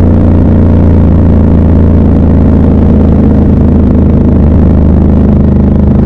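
Triumph Scrambler 1200 XC's 1200 cc parallel-twin engine running at fairly steady revs while the motorcycle is ridden, heard up close.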